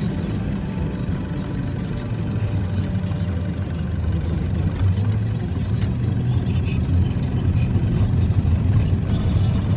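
Car driving slowly, heard from inside the cabin: a steady low engine and road rumble as the tyres roll over a packed-snow road.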